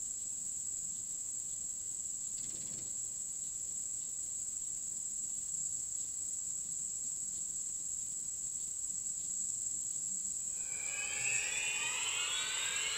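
Crickets trilling steadily in one high, unbroken note. About ten and a half seconds in, a swell of overlapping sliding tones comes in.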